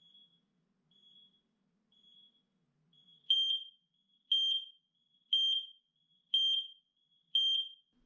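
X-Sense wireless interlinked smoke alarms beeping about once a second. For the first three seconds the beeps are faint, an alarm in the next room heard through a door. From about three seconds in, a nearby unit joins with five loud beeps, a couple of seconds late: the wireless interlink signal has reached it.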